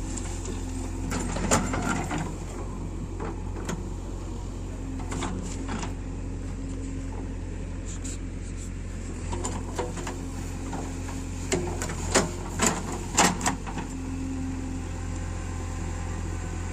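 Diesel engine of heavy earth-moving machinery running steadily, with a few sharp metallic knocks about a second and a half in and again in a quick series around twelve to thirteen seconds in.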